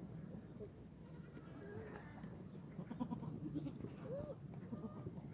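Black goats bleating on and off: several short, separate calls from more than one animal.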